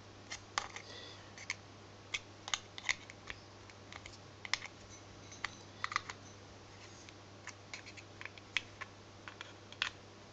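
Irregular small clicks and scrapes of a screwdriver prying at the pinned metal plate of a small microwave-turntable synchronous motor.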